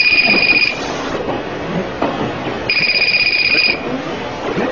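Phone ringing: a steady high electronic tone about a second long, twice, repeating about every three seconds, over faint background talk.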